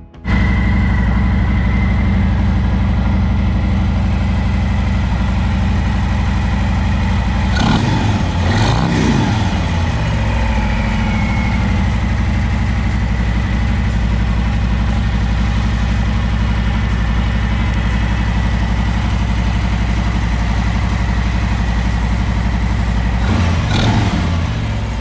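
Harley-Davidson Milwaukee-Eight V-twin of a 2020 Road Glide Special idling through a newly fitted Arlen Ness Method clear air cleaner. It is revved up and back down about eight seconds in, and revved again near the end.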